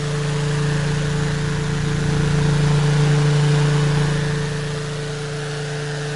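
An engine or motor running steadily, with a strong low hum that swells a little in the middle.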